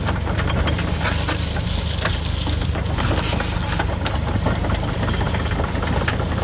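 Kubota RX-406E mini excavator's diesel engine running steadily, with scattered light clicks and knocks over the running.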